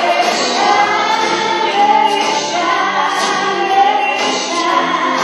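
A song playing as dance music, with singing voices over the accompaniment.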